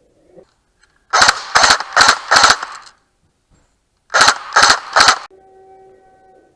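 CYMA AKM electric airsoft gun firing shots in quick succession, about two and a half a second: four, a short pause, then three more. A faint steady tone follows near the end.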